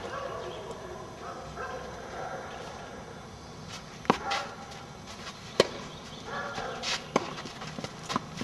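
Tennis racket strikes on the ball during a doubles rally: four sharp pops roughly a second and a half apart, starting about four seconds in.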